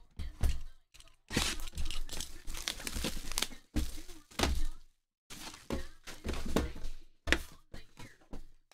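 Sealed cardboard trading-card hobby boxes being handled and moved on a tabletop: a string of knocks and thunks with stretches of scraping and crinkling between them.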